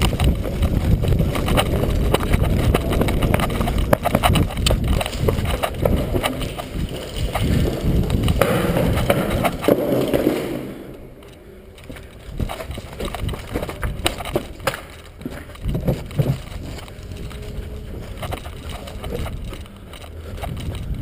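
Rough handling and movement noise from a player carrying the camera as an airsoft round begins: heavy rumbling, rustling and rapid knocks of footsteps and gear. About ten seconds in it drops to a quieter stretch with scattered clicks and knocks.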